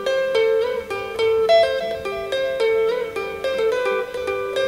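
Electric guitar played alone, picking a quick melodic lead line of single notes.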